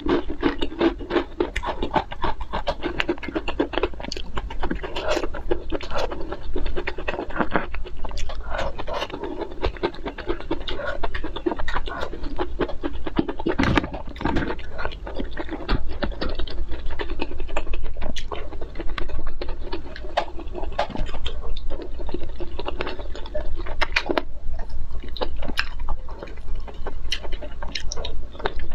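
Close-miked chewing and mouth sounds of eating, with a dense, continuous run of small wet clicks.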